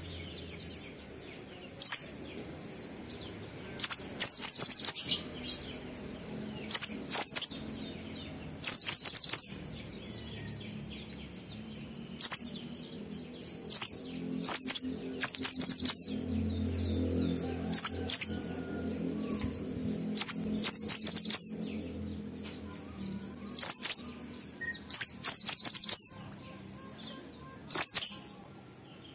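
White-eye (pleci) singing in the 'ngalas' style: short, fast, high-pitched twittering phrases repeated every second or two, some in quick runs of two or three.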